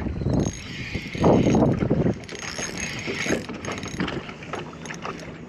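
Fishing reel being wound in with a hooked fish on the line, the reel mechanism clicking and whirring, mixed with irregular knocks and a louder noisy burst about a second in.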